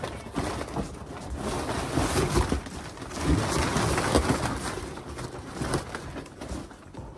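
Crumpled paper packing rustling and crackling as it is pulled out of a cardboard box, loudest in the middle.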